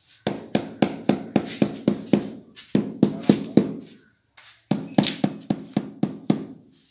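A mallet tapping ceramic wall tiles to bed them into cement mortar: rapid knocks about four a second, with a short pause about four seconds in.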